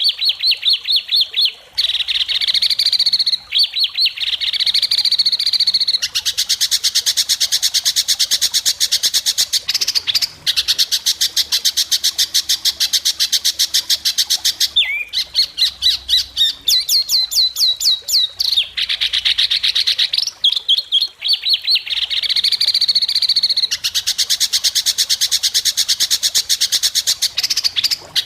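White-rumped shama (murai batu) singing long, very fast runs of sharp repeated notes (the trill song bird-keepers call besetan), with shorter warbled phrases between them.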